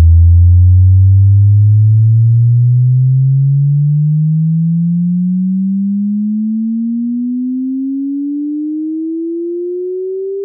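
Bass sweep test tone: a pure sine tone gliding steadily upward in pitch from deep bass to low midrange, getting gradually quieter as it rises.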